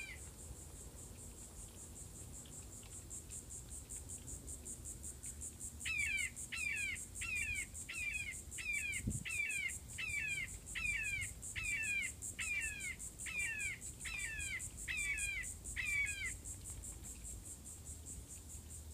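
Red-shouldered hawk calls, most likely a recording played through a phone: after a few seconds' pause, a regular run of about fifteen short descending calls, one every 0.7 seconds or so. Crickets trill steadily underneath, and there is a single low thump about nine seconds in.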